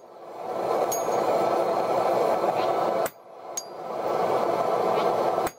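Hammer blows on a punch driving the eye into a red-hot steel axe block on an anvil: sharp strikes at the start, about three seconds in and at the end, each followed about half a second later by a light ringing clink. Under them runs a steady rushing noise.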